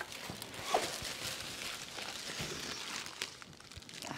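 Plastic wrapping rustling and crinkling, with many small scattered clicks, as a speaker in its plastic bag is lifted out of a cardboard box.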